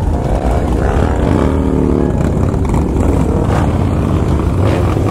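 Several motorcycle engines running together with a deep, steady rumble. One engine revs up and back down in the first couple of seconds.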